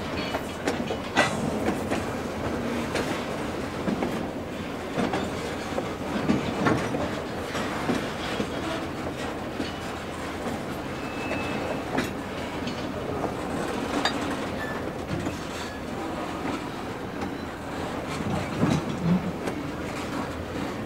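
Kicked freight cars, a bulkhead flatcar and a lumber-loaded centerbeam flatcar, rolling freely along the yard track with a steady rumble and scattered sharp clicks from the wheels over the rail joints.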